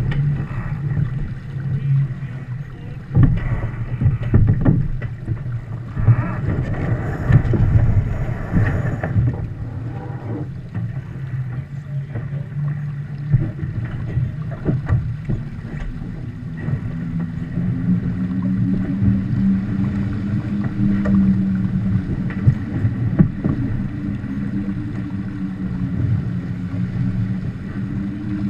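Water rushing along the hull of a Viper sportboat under sail, with wind buffeting the deck-mounted camera's microphone. Splashes and knocks come often in the first ten seconds, and a steady low hum sets in about halfway through.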